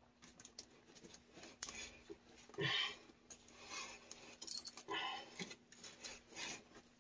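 Pipe cutter being turned by hand around a copper water pipe: faint, irregular scraping and clicking strokes about once a second as the cutter wheel scores the pipe.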